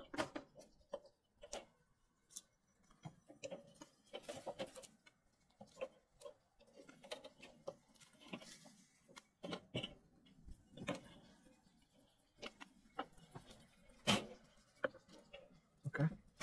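Irregular light clicks and knocks, scattered a few at a time, with the sharpest knock about 14 seconds in.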